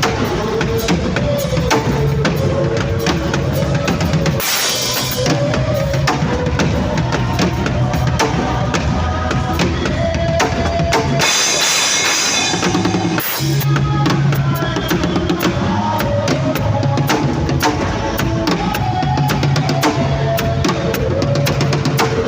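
Drum kit played busily along with a music track: kick drum, snare and cymbals over a bass line. The low end drops out twice under a bright cymbal-like wash, briefly about four seconds in and again for about two seconds near the middle.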